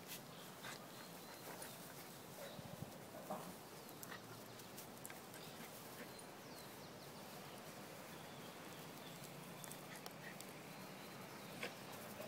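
A West Highland white terrier and an Akita Inu play-fighting: faint scuffling with scattered short taps and a few brief dog noises.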